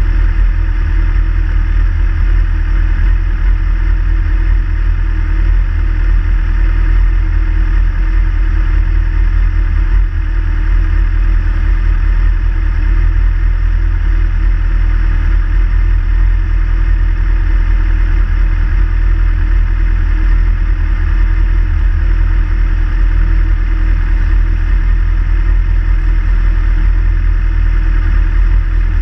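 Sport motorcycles idling while stationary, a steady deep engine rumble with no revving.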